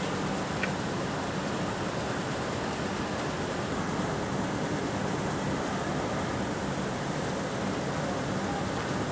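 Steady mechanical noise of industrial machinery running, an even rushing sound with a low hum beneath it.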